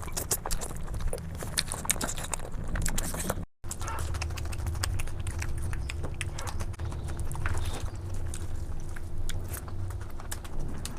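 Close-miked eating: chewing with many sharp mouth clicks and smacks. The sound drops out briefly about three and a half seconds in, where the recording is cut, and a faint steady hum runs under the chewing after that.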